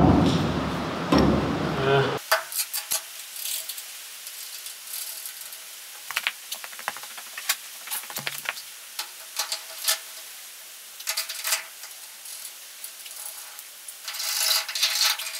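Hand tools and bolts clinking and tapping on metal while the steering rack's mounting bolts are refitted. It opens with about two seconds of loud rustling noise, and near the end comes a run of rapid ratchet clicks.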